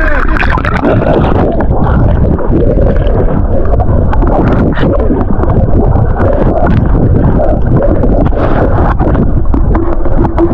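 Loud rushing, churning water close to the microphone, with many short splashes and heavy rumbling buffeting.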